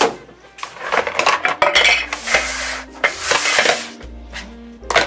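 Metal screw-on camera lens filters and their caps clinking and clacking as they are set down and moved about on a wooden tabletop, with two longer scraping sounds in the middle.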